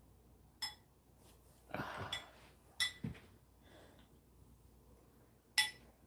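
Quiet, broken by a few short, sharp clicks, a soft low knock and a brief rustling sound about two seconds in.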